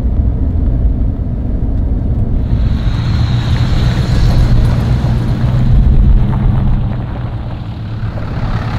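Helicopter running steadily, a loud continuous engine and rotor rumble that eases slightly near the end.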